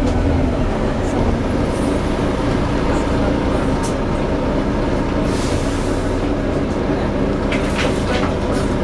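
Volvo B9TL double-decker bus running steadily, with a continuous droning hum and a few brief rattles. The hum is the bad axle noise the video is about.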